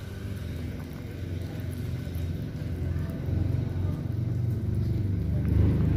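Low rumble of a motor vehicle's engine running, growing steadily louder over the few seconds.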